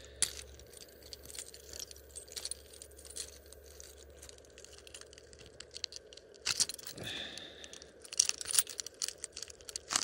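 Wild cherry bark being pried and peeled off wood with a sharp stick: irregular small cracks and tearing, busier and louder in the second half.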